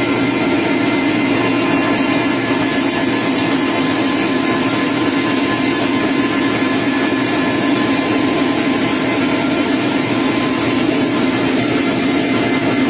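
Plastic extrusion machinery running: a steady mechanical drone with a thin constant whine and a high hiss that grows a little stronger about two seconds in.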